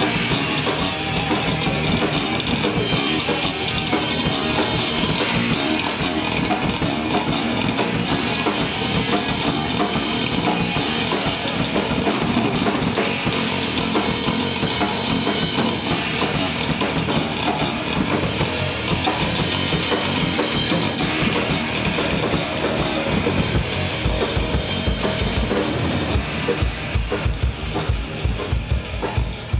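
A rock band playing live, with a drum kit and guitar. Fast, dense bass drum strokes come to the fore near the end.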